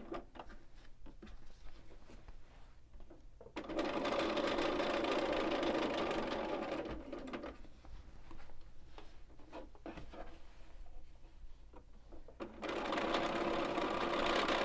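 Bernina B 770 computerized sewing machine stitching an appliqué edge in two runs, one starting about three and a half seconds in and lasting about four seconds, the other starting near the end. Between them are quieter pauses with small clicks.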